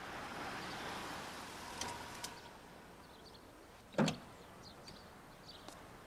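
A large sedan rolls up and comes to a stop, its running noise fading away. There are a couple of small clicks, then one sharp thump about four seconds in as the car settles and the door is worked.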